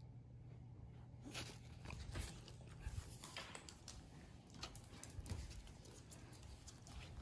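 Faint, irregular clicks and taps from about a second in, as a miniature schnauzer moves about on a wooden floor and mouths a red toy ball.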